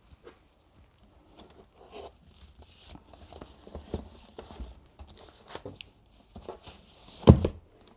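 Hands handling books and packaging: rustling and scraping with small clicks, and one louder knock about seven seconds in.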